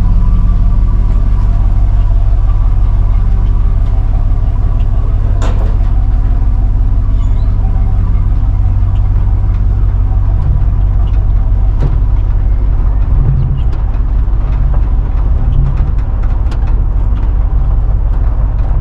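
Pickup truck engine running steadily, with a couple of sharp clicks or knocks, one about five seconds in and another about twelve seconds in.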